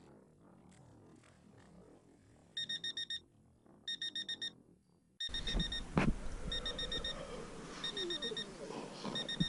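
Alarm clock beeping in short groups of rapid, high beeps, one group about every second and a half, starting a little after two seconds in. From about halfway, rustling movement and a knock join the beeping.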